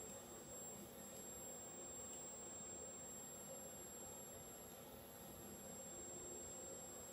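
Near silence: faint room hum with a thin, steady high-pitched whine.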